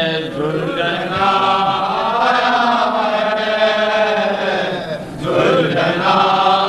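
Men chanting a noha, an Urdu mourning lament: a lead voice sings long, wavering melodic lines over a steady low drone, breaking briefly about five seconds in before the next phrase.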